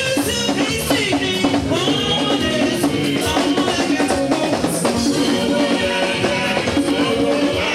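Church praise music: voices singing over drums and percussion with a steady beat.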